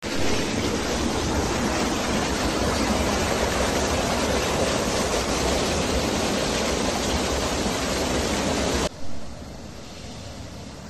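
Water rushing steadily through a shrimp pond's drain sluice into a harvest net. It cuts off abruptly about nine seconds in, giving way to a quieter rush.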